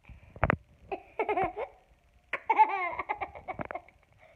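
A toddler laughing in two bursts of high-pitched giggles, after a short knock about half a second in.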